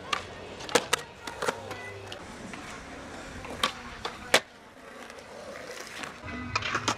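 Skateboard on concrete: the wheels roll with a low rumble, broken by several sharp clacks of the board popping and landing, the loudest a little past the middle.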